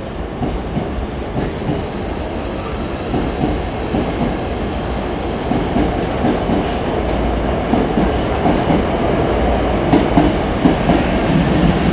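Hankyu Kobe Line electric train running along the platform, its steady rumble growing louder, with wheels clacking over rail joints in a quick rhythm near the end.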